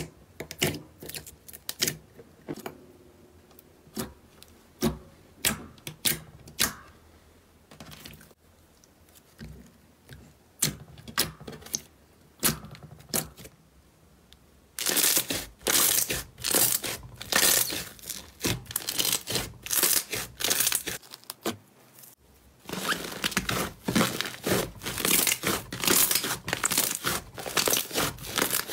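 Slime being squeezed by hand. First come scattered sharp squishy pops as clear jelly slime is poked. From about halfway, thick white foam slime being pressed and pulled gives a dense run of crackles, with one short pause.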